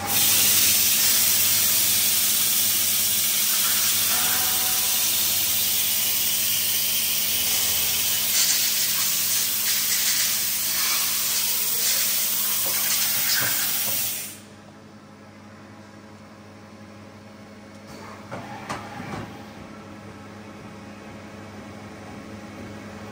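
Loud steady hiss of compressed air blowing inside a Mazak VTC-300 C II vertical machining centre. It cuts off suddenly about fourteen seconds in, leaving the machine's low steady hum and a few faint clicks.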